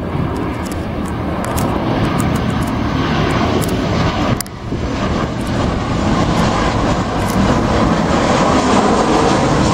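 Engines of an arriving airliner on landing, a loud steady roar that slowly grows louder, with a brief drop about halfway through.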